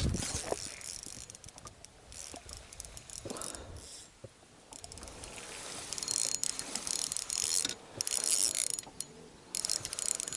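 Fishing reel clicking rapidly in bursts while a fish is played on the line.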